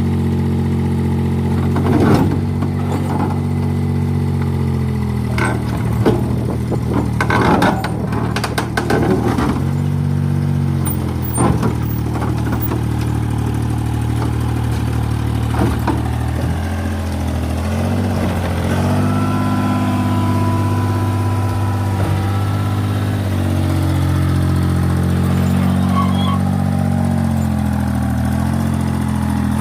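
Mini excavator's diesel engine running steadily, its note shifting up and down a few times, with a series of sharp knocks and clanks in the first third.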